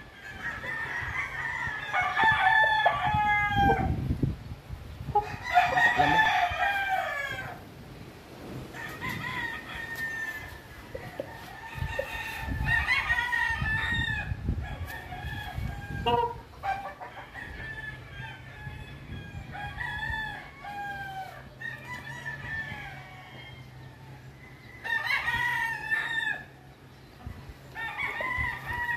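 Roosters crowing over and over, one crow after another, loudest in the first seven seconds and again near twenty-five seconds.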